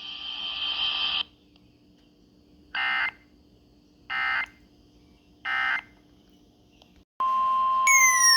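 Three short bursts of Emergency Alert System digital data, each under half a second and about 1.3 seconds apart: the end-of-message code closing the alert. Before them a steady high tone cuts off about a second in. About seven seconds in, a loud steady tone starts, joined near the end by falling sweeping tones.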